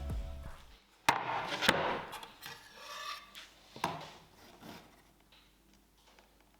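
Pieces of wood being handled and knocked together: a few sharp knocks, about a second in, again just after and near four seconds, with rubbing and scraping between.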